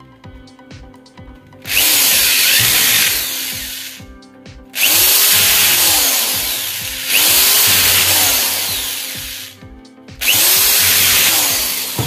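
Powered screwdriver or drill-driver running in four bursts of about two seconds each, driving in the gear-housing screws of an angle grinder. Each burst starts suddenly and fades away, its motor pitch rising and then falling.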